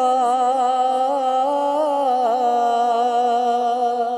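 Male voice singing an Urdu devotional kalam, holding one long, wavering note without a break.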